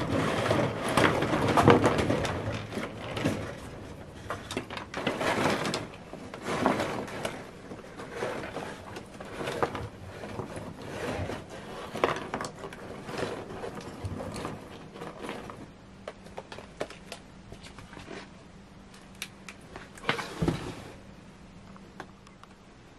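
Dry apple wood sticks clattering and knocking against each other and a plastic tray as they are tipped out of a mailing envelope and spread by hand, with the envelope rustling. Dense for the first several seconds, then scattered clicks and knocks, with a sharper knock about twenty seconds in.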